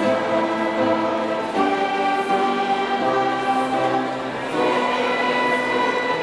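A large group of high school graduates singing together as a choir, holding long notes that move to a new note every second or so.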